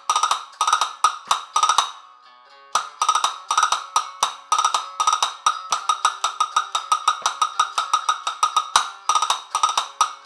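Castanets played with both hands in a Sevillanas pattern: quick groups of clicks, a short pause about two seconds in, then a long run of fast, even strokes and rolls, ending in a few separate strikes.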